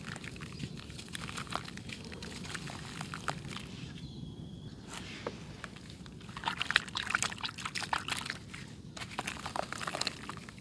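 Dry red dirt clay being crushed and crumbled, a run of small crunches and crackles. It thins out briefly about four seconds in and grows denser and louder after about six seconds.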